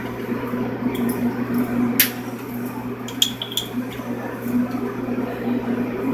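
Steady low machine hum of a commercial kitchen, with a sharp click about two seconds in and a quick run of small clicks and taps a little after three seconds, as a rubber hose is fitted onto the glass bottle of a gravity-bong smoker.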